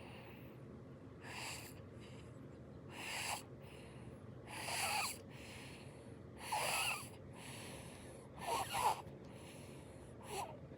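Sleeping baby snoring: six snores in a steady rhythm, about one every two seconds, each lasting around half a second, with a thin pitched edge.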